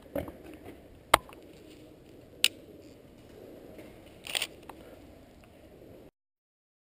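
Two sharp clicks, one just over a second in and another about a second later, then a brief clatter a little past four seconds, over a low, quiet background. The sound cuts out abruptly to silence about six seconds in.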